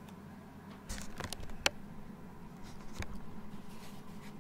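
A plate and cutlery being handled: a handful of light clicks and knocks, the sharpest about one and a half seconds in.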